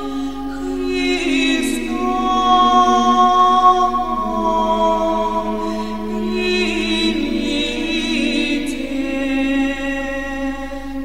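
Unaccompanied choral singing: several voices holding long notes that shift slowly from chord to chord.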